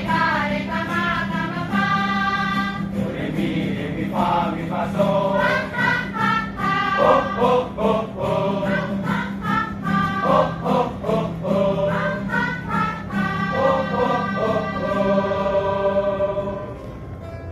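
A choir of people singing together in chorus, with long held notes; the singing stops about a second before the end.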